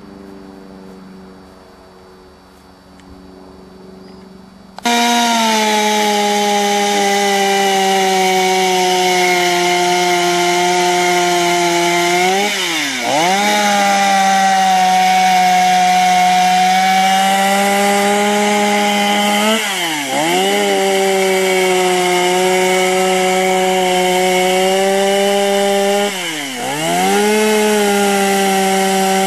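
Two-stroke chainsaw running at high revs while carving wood. It is fainter at first and turns suddenly loud about five seconds in. Three times the engine pitch dips sharply and recovers as the chain bogs into the wood.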